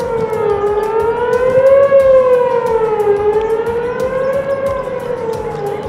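Outdoor tornado warning siren wailing, one steady tone whose pitch drifts slowly up and down. It sounds for a tornado warning.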